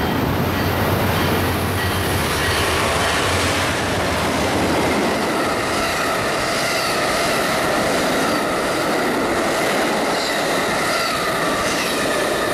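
Amtrak Coast Starlight passenger train passing close by: a low diesel rumble for the first few seconds, then the Superliner bilevel cars rolling past with wheels clicking over the rail joints and a steady high wheel squeal.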